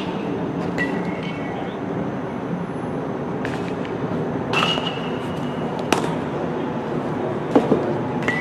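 Steady outdoor ballpark background noise, with a few short high squeaks and small clicks. Near the end come two sharp, loud pops, the pitched baseball smacking into the catcher's mitt.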